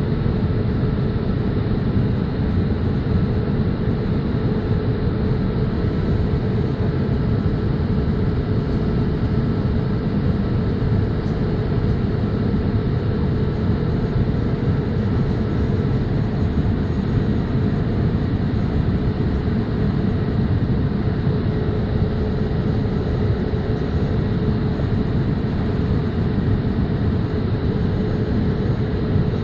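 Steady cabin noise of a Boeing 787-8 airliner: a constant low rush of engine and airflow noise with a steady hum, unchanging in level.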